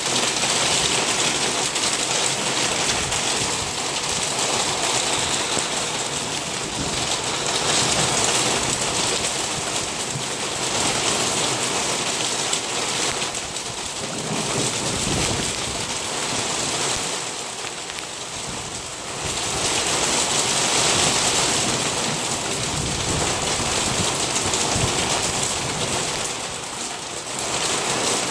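Heavy rain pouring down hard, a dense, steady hiss that swells and eases every few seconds.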